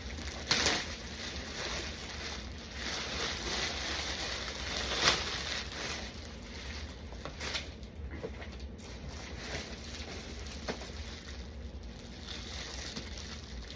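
Plastic packaging rustling and crinkling as items are handled and unwrapped, with a few sharper crackles, the loudest about five seconds in.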